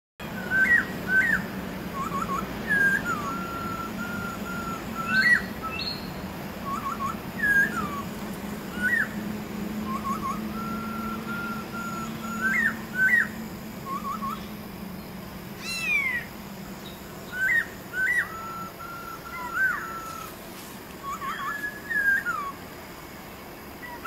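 Black-throated laughingthrush singing clear whistled phrases, repeated every few seconds: a few short rising notes, then a steady held whistle. A single long falling whistle comes about two-thirds of the way through.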